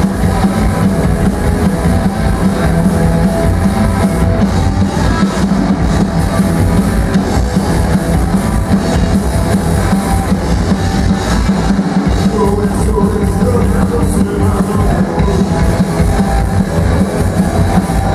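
Surf rock played live and loud by a band: electric guitar, upright double bass and drum kit playing together without a break.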